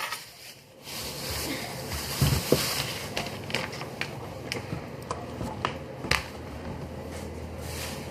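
Kitchen handling sounds: scattered light clicks and knocks of things being picked up and set down, with one sharper click about six seconds in.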